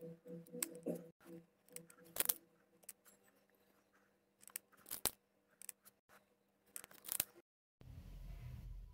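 Small plastic beads clicking against each other and a plastic dish as they are picked out by hand and threaded onto clear elastic cord: irregular sharp clicks. About eight seconds in the clicks stop and a low steady rumble takes over.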